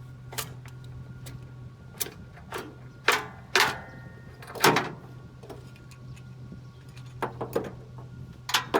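A series of irregular sharp knocks and clicks, about nine of them, over a steady low hum.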